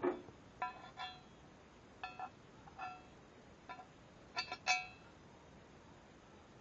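Steel edge-guide rods and guide plate clinking against the plunge router's base as they are fitted: a series of about eight short, ringing metallic clinks, the loudest near the end.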